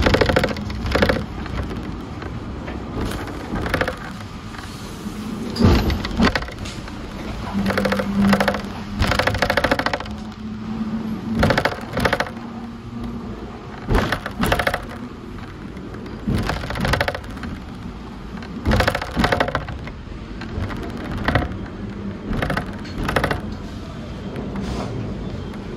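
Hong Kong double-decker tram in motion, heard on board: the car body and wheels rattle and clatter in irregular bursts every second or two over a steady running noise.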